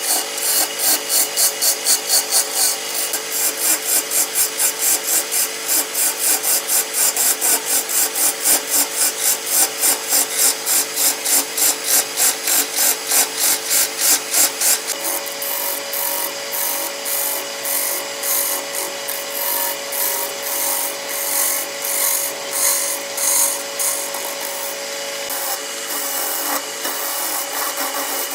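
Wood being rubbed or scraped in regular strokes, about three a second, over a steady hum. About halfway through, the strokes turn softer and less even.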